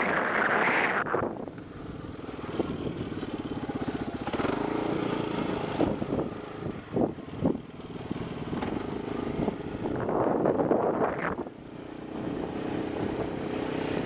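Motorcycle engine running while under way, with wind noise on the microphone that swells and fades, loudest at the very start and again about ten seconds in.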